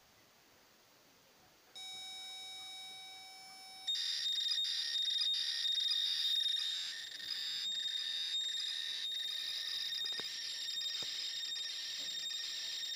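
ZX Spectrum+ tape-loading signal played loudly through the computer's small speaker by an added PWM amplifier fed from the ULA's tape-input pin. About two seconds in a steady pilot tone sets in, and about four seconds in it turns into the dense, buzzing warble of the program data loading.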